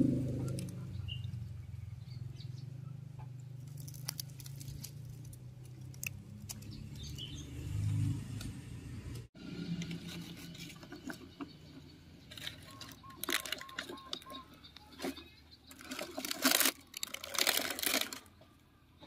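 A motor vehicle's hum fades out. After a cut come scattered clicks and rustling, louder near the end, as a plastic toy tanker truck is handled among dry leaves and dirt, with a short run of faint chirps in the middle.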